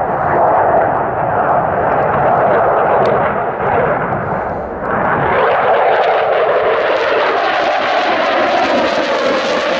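Saab JAS 39 Gripen's single jet engine roaring as the fighter banks through a display pass. About halfway through, the sound suddenly turns brighter and more hissing, and it stays that way as the jet comes round.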